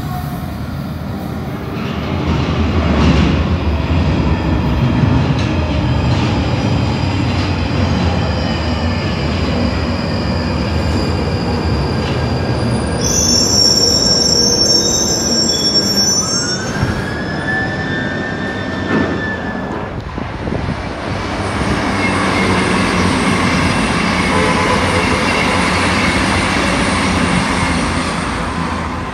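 London Underground Northern line 1995-stock tube train running into a deep-level platform: a continuous rumble with metallic wheel squeal and whistling as it brakes in.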